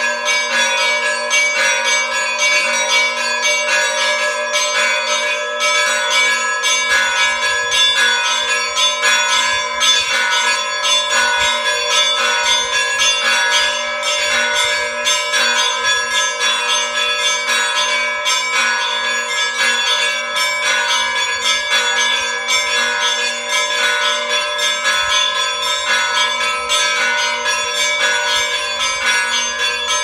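Orthodox church bells in the bell tower rung in a continuous peal. Several bells of different pitches are struck in rapid succession, and their tones hang and overlap without a break.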